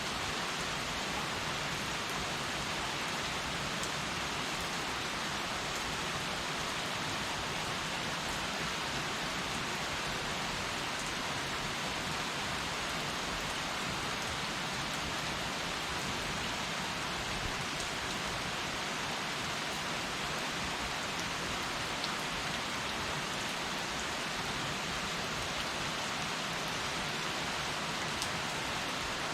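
Heavy rain falling steadily, an even hiss of rain on surfaces with a few scattered drop ticks.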